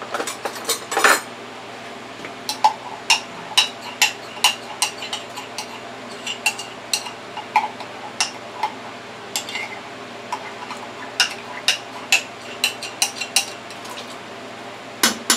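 A spoon clinking and tapping against a large stainless steel stockpot, in light, sharp, irregular knocks about twice a second, with a quick run of clinks in the first second.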